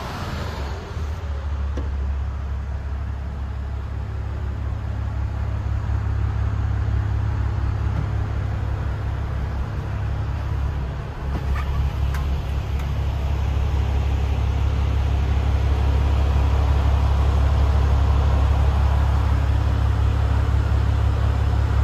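Mercedes Actros 2545 tractor unit's 450 bhp Euro 5 diesel engine idling, a steady low rumble heard from inside the cab, a little louder in the second half. A few faint clicks come about twelve seconds in.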